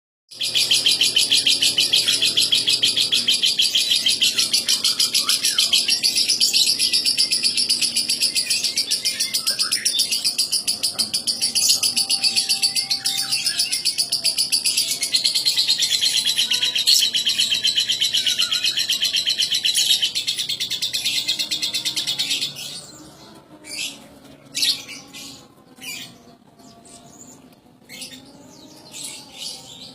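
Lovebird singing one long, unbroken, rapid chattering trill for over twenty seconds, then breaking off into scattered short chirps.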